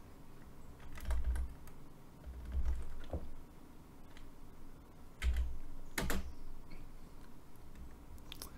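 Computer keyboard keystrokes: a few scattered presses and short runs with pauses between them, each with a dull thud.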